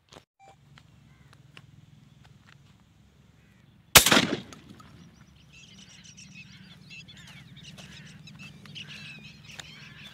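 A single 12-bore shotgun shot about four seconds in, ringing off for about half a second. Soon after, birds call in a busy chorus of short rising and falling chirps.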